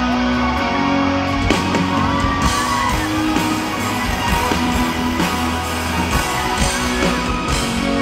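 Live concert music: the band plays the instrumental introduction of a slow pop ballad, with sustained notes and no singing yet.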